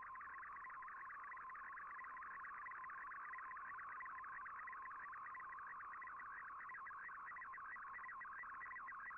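Shortwave radio receiver playing a digital picture transmission in Fldigi's MFSK image mode: a steady, dense warble of rapidly shifting data tones, the picture being sent line by line.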